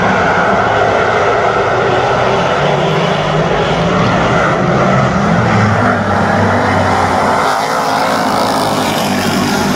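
A pack of dirt-track race cars running at speed together, many engines blending into one loud, continuous drone that rises and falls a little as the cars go around.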